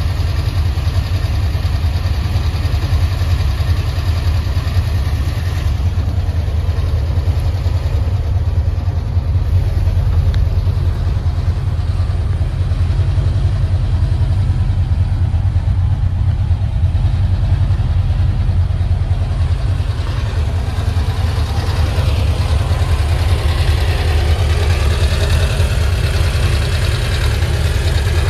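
A steady low rumble, like an engine idling, holding at an even level.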